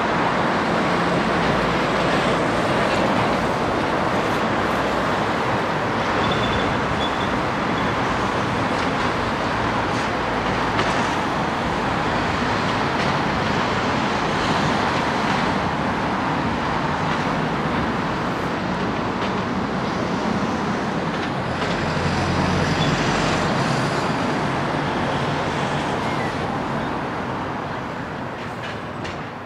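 Steady motor-vehicle and traffic noise from around a ferry terminal, with a low engine rumble swelling about three-quarters of the way through.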